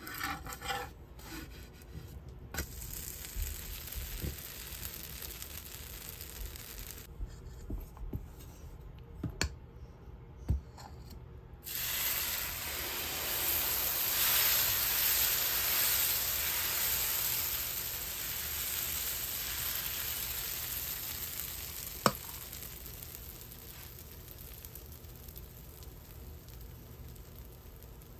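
Dosa batter sizzling as it is ladled onto a hot iron tawa: the hiss starts suddenly about twelve seconds in, swells, then slowly dies away as the dosa sets. Before it come light knocks and scrapes of utensils on the pan, and one sharp tap comes while it is fading.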